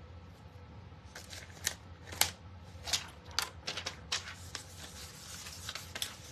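Plastic backing sheet of a rub-on transfer crinkling and crackling in irregular sharp bursts as it is handled and rubbed down onto a wooden board with a small burnishing tool.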